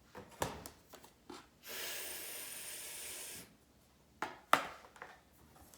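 A woman's voice holding a voiceless hissing letter sound, a Montessori phonetic sound said without a vowel, steady for about a second and a half. There are a few light clicks before and after it.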